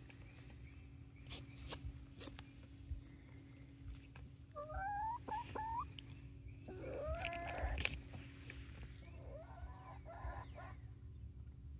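Young hens (19-week-old pullets) giving a few quiet, wavering calls in three short bouts: about halfway in, just after (the loudest), and near the end. Light clicks and taps come between them.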